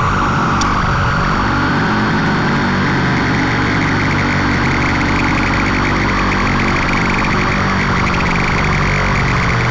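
Improvised avant-garde electronic music: a steady low drone of several layered tones under a grainy, buzzing noise.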